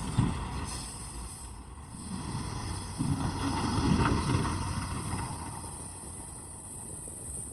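Diesel engine of heavy earth-moving machinery running under load, with a sharp knock just after the start. The engine swells louder a few seconds in, then eases off.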